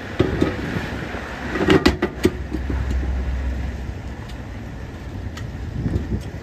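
A truck tire on its steel wheel being handled and set down onto a tire changer's turntable: a cluster of knocks and clanks about two seconds in, with a few lighter knocks before and after, over a low rumble.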